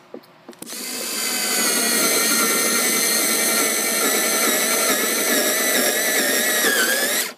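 Battery-powered screwdriver with a Phillips bit running steadily for about six seconds, driving a screw. Its pitch sags briefly near the end as the screw draws tight, then it stops suddenly.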